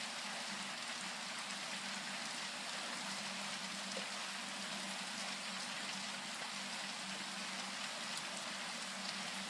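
Steady rain falling: a continuous even patter and hiss. It is light to moderate rain that keeps on without easing.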